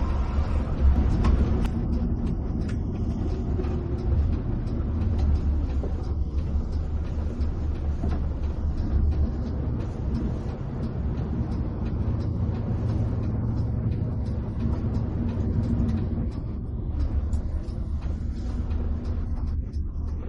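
Coach bus engine running with tyre and road rumble, heard from inside the cabin while cruising: a steady low drone with light scattered ticks over it.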